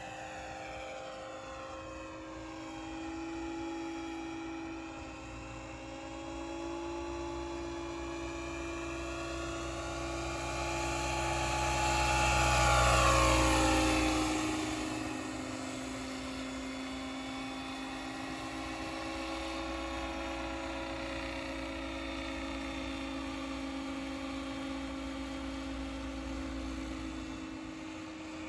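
Radio-controlled scale model Huey helicopter flying, with a steady whine of motor and rotors. It grows louder to a peak about halfway through as it passes close, its pitch dropping as it goes by, then carries on steadier and fainter.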